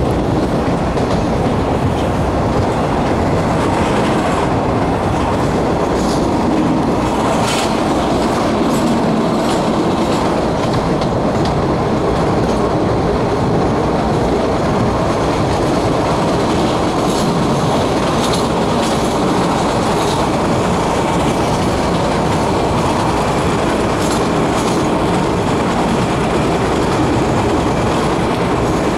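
MBTA Red Line subway car running along the track, heard from inside the car: a steady loud rumble of wheels on rail with scattered sharp clicks as the wheels pass over rail joints.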